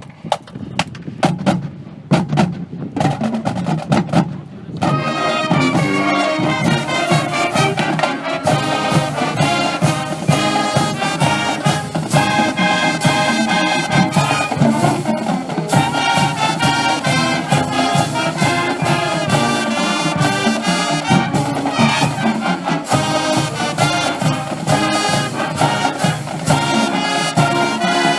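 Brass band music: about five seconds of drum hits, then trumpets and trombones come in playing a brisk tune over a steady beat.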